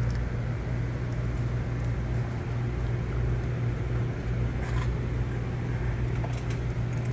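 Steady low hum of shop background noise, with a few light clicks of hand tools being handled about five seconds in and again near the end.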